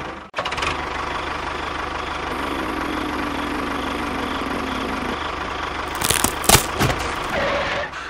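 Small tractor engine running steadily with a low pulsing drone, and a few sharp clacks about six to seven seconds in.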